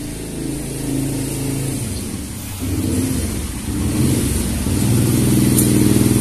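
An engine running steadily, a low hum that grows louder about two and a half seconds in and again near four seconds.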